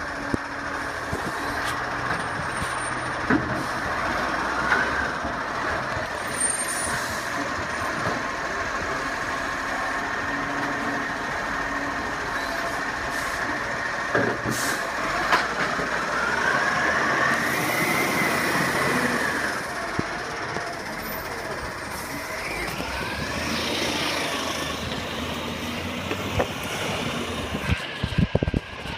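Heavy truck running close by, its engine note rising and then falling for a few seconds around the middle.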